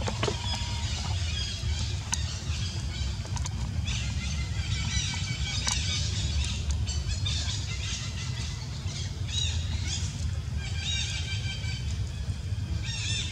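Baby macaque giving repeated short, high-pitched squeals in bursts, over a steady low rumble.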